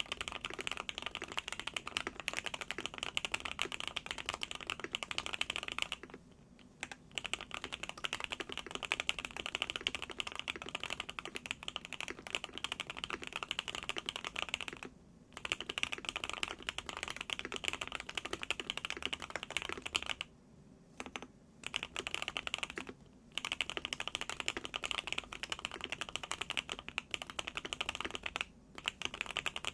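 Continuous fast typing on a Qwertykeys QK65 custom mechanical keyboard with hand-lubed Gateron Oil King linear switches, a POM plate and a two-layer tape mod: a dense stream of muted keystrokes, with brief pauses a few times.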